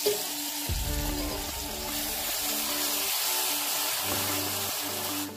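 Ground poha frying in hot ghee sizzles steadily as sugar syrup is poured in and stirred with a spatula, under background music with sustained notes. The sizzle drops away sharply near the end.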